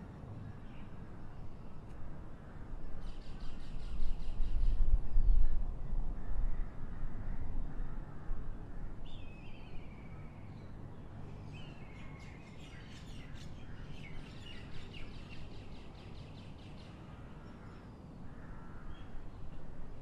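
Birds calling over a steady outdoor background, with bursts of repeated calls a few seconds in and again in the middle. A low rumble swells from about four to eight seconds in.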